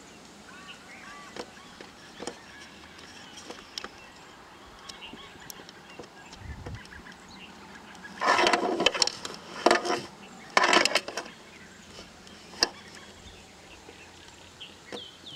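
Wild Asian elephant trumpeting: three loud, harsh blasts in quick succession a little past halfway, over faint birdsong.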